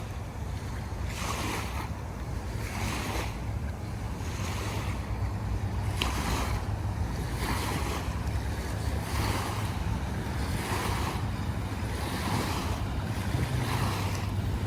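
Waves washing in and out, a soft swell about every second and a half, with wind rumbling on the microphone.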